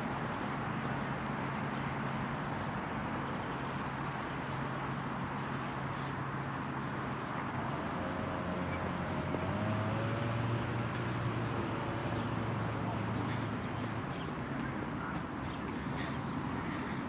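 Outdoor city ambience: a steady wash of distant traffic with a low hum, faint voices and a bird call about eight seconds in.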